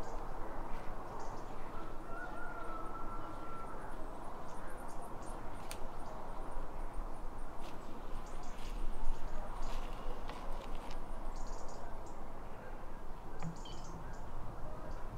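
Quiet forest ambience: a steady hiss of air moving through the trees, with scattered faint ticks and rustles of leaves and twigs. A thin whistled note sounds for about two seconds near the start, and there is one sharp click about six seconds in.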